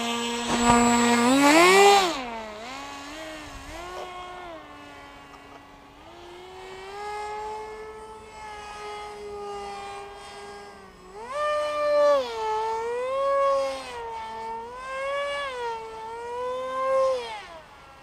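Electric brushless motor and propeller of an RC paramotor, 350 W on a 4S battery, running with a high whine that climbs in pitch as it is throttled up in the first two seconds, then settles lower. In the second half it swells and dips several times with throttle changes, then cuts off just before the end.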